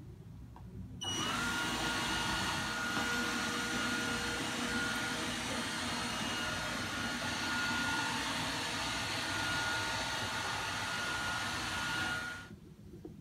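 Bobi Pet robot vacuum's motor starts up about a second in with a whine that quickly rises to pitch. It runs steadily as a rushing hum with a high whine on top, then winds down and stops near the end.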